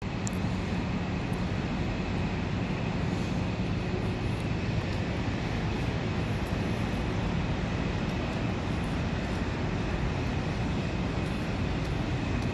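Steady low rumble of city street noise, with a faint steady high whine running through it.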